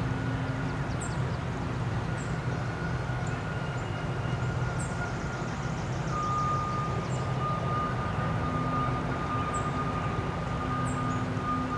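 Steady mechanical drone with a low hum and a thin high whine that drops slightly in pitch about halfway through. Short high chirps come through about once a second.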